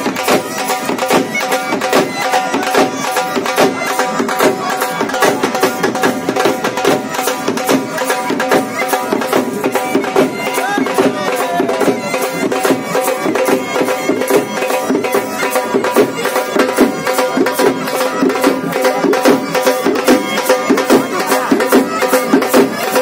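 Traditional Indian folk music: a reedy wind instrument over a steady drone, with fast, continuous drumming.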